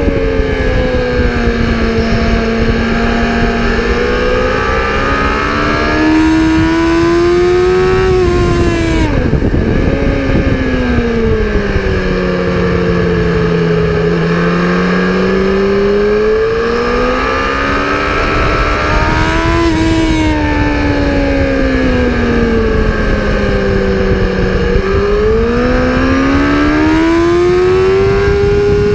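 A racing vehicle's engine lapping the circuit. Its note rises and falls in long sweeps as it accelerates and slows through the corners, with abrupt jumps in pitch about a third of the way in and again about two-thirds in. A steady rush of noise lies under it.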